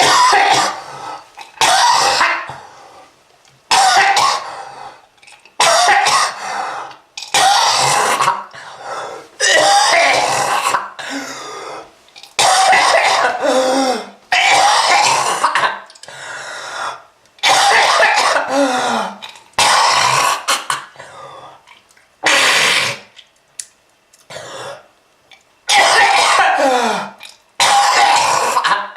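A person coughing hard and clearing their throat over and over, one harsh bout every second or two, some with a strained voiced sound in them. It is presented as a smoker's cough.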